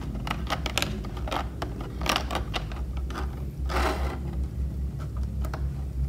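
Small plastic figure parts and a clear plastic blister tray being handled: a run of light clicks and taps as pieces are lifted out and set down, with a brief crinkle of the tray about four seconds in, over a steady low hum.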